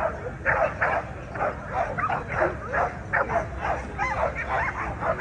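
Several American Pit Bull Terriers barking and yipping over and over, about two to three calls a second, some of them high, whiny yips.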